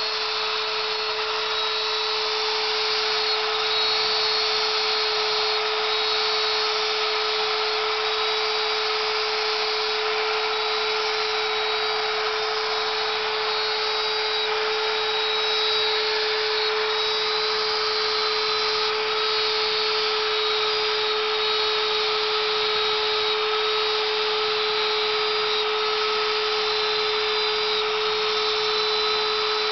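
Router spindle of a DIY CNC router running at about 18,000 RPM, its 1/8-inch two-flute carbide endmill cutting gear teeth into plywood. It gives a steady whine of unchanging pitch over a constant cutting hiss.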